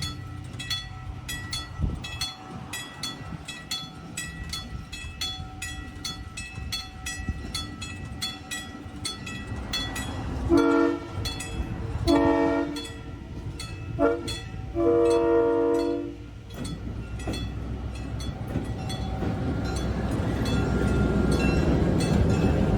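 Locomotive horn of Southern Pacific 1423 sounding the grade-crossing signal: two long blasts, a short one, then a long one, about halfway through. Before that a bell rings quickly and steadily. After the horn a rumble grows louder as the train comes near.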